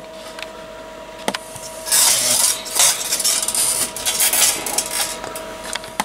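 Workbench handling noise: a single sharp click about a second in, then a few seconds of rubbing, scraping and light clatter as things are moved about. A faint steady tone runs underneath.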